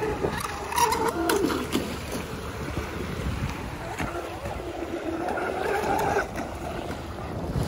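Electric RC speedboats running on 6S batteries out on open water, their brushless motors a faint whine over wind and lapping waves, with a few brief murmured voices near the start.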